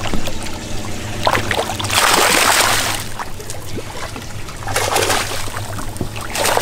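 Water splashing and sloshing at the surface beside a boat as a hooked mahi-mahi thrashes, in two loud surges about two seconds and five seconds in. Under it runs the steady low hum of the boat's idling engine.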